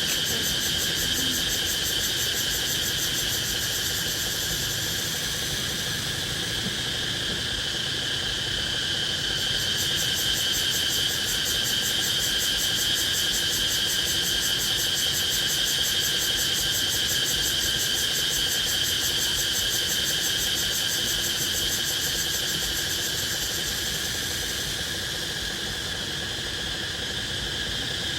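A chorus of forest insects such as crickets: a steady high drone at two pitches, with a fast, even pulsing trill above it. The trill drops out briefly about a third of the way in and fades near the end.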